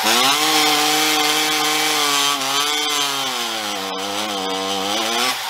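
Ported Stihl MS460 two-stroke chainsaw with an expansion pipe running on a dyno, its revs wavering up and down as it runs out of fuel, then dying abruptly near the end.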